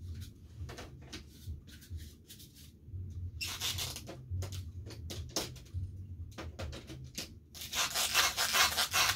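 Rubbing and scraping noise in two stretches, one starting about three and a half seconds in and a louder one near the end, with scattered clicks over a low hum.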